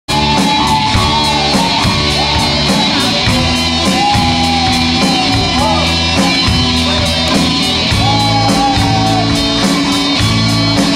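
Loud live rock band playing: electric guitar, bass guitar and drum kit, with a steady fast drum beat and a wavering melody line over held low notes.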